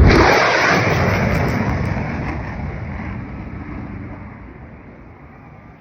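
Blue Angels F/A-18 Super Hornet jet roaring past low and fast on a sneak pass. The roar is loudest right at the start, then fades steadily over about five seconds as the jet flies away.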